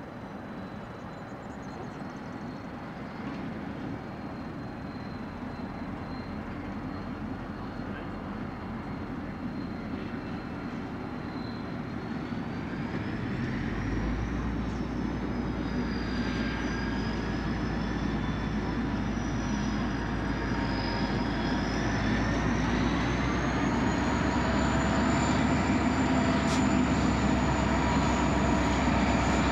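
A grain train hauled by G class and 81 class diesel-electric locomotives approaching, its rumble growing steadily louder as it draws near. A deep, steady hum comes in about fourteen seconds in, and a high, wavering squeal runs above it.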